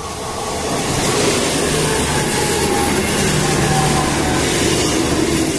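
A train passing close by: a loud, steady rush of wheel-on-rail and air noise with a low hum. It builds over the first second, then holds.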